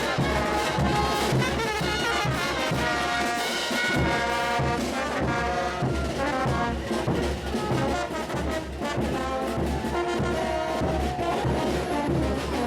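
Brass band music: trumpets and trombones playing held, stacked notes over a steady low drum beat.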